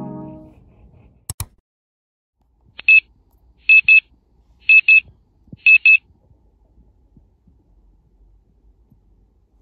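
Digital alarm going off: four bursts of short high-pitched beeps, mostly in pairs, about one burst a second, then it stops. Two sharp clicks come just before the beeping.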